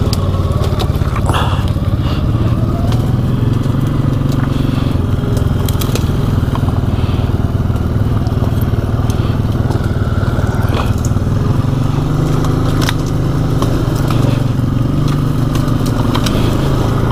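Can-Am Outlander 700 ATV engine running steadily while the quad pushes through brush, with frequent sharp cracks and scrapes of twigs and branches snapping against and under the machine.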